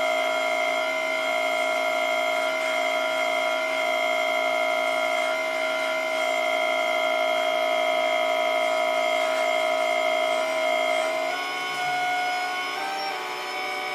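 Hydraulic pump of an RC Volvo EC480D excavator whining steadily as the grapple boom works. The pitch steps up about eleven seconds in and wavers briefly near the end. This is the older, noisier pump, not the newer silent pump.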